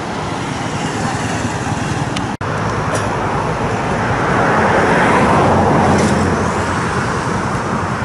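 Road traffic noise: a vehicle passing, swelling and fading around the middle, over a steady low hum. The sound breaks off for an instant at an edit a little over two seconds in.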